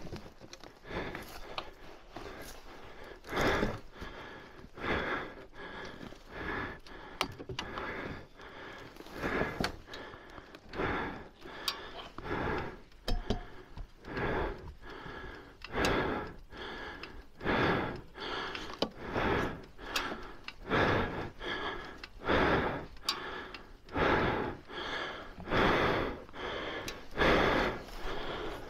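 A person panting hard, quick regular breaths at about one a second, slightly slower near the start.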